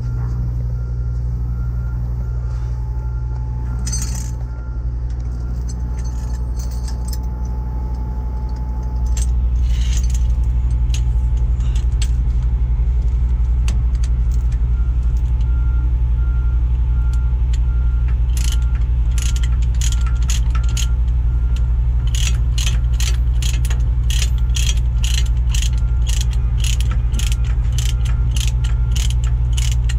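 A truck engine running steadily at idle, getting louder about a third of the way in, with chain links clinking; from about halfway a ratchet wrench clicks in quick regular strokes, two or three a second, under the truck.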